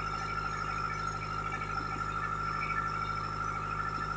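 A fishing boat's engine running steadily: a constant low hum with a steady high tone over it.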